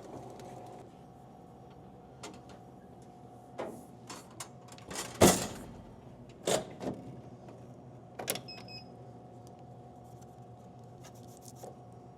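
Plastic water bottles being handled and loaded into a vending machine: a scattering of short knocks and clunks, the loudest about five seconds in, over a steady hum.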